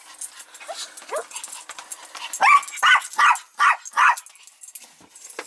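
Small long-haired dog giving a couple of faint short whines, then five quick excited yips, a little over two a second, about halfway through.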